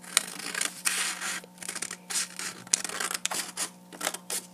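Scissors snipping through paper, a quick irregular run of short cuts with paper rustling between them.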